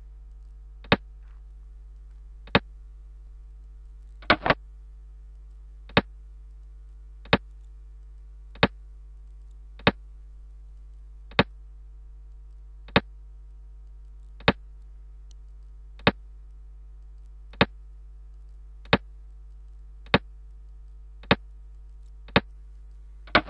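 Sharp single clicks, about one every second and a half, as moves are played out on a computer xiangqi board. There is a quick double click about four seconds in and another at the very end, over a steady low electrical hum.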